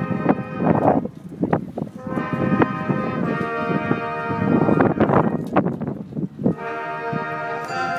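Marching band playing: held brass chords punctuated by drum hits, with a brief break about six and a half seconds in before a new sustained chord.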